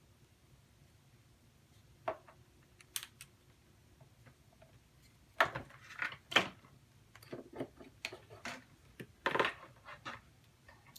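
Irregular light clicks and taps of small objects being handled, a few at first, then busier from about five seconds in.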